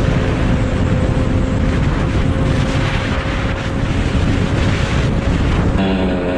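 Heavy wind buffeting on a motorcycle helmet camera's microphone at highway speed, with the motorcycle engine's steady drone underneath. Near the end it cuts abruptly to a quieter, clearer engine hum of a scooter riding in slow traffic.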